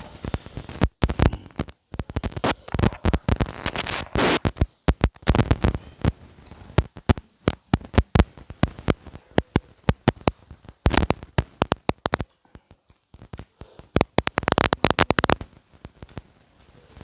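Close-miked eating of fish curry: wet chewing and mouth noises broken by many sharp clicks and crackles throughout, the crackle put down by the eater to a loose microphone.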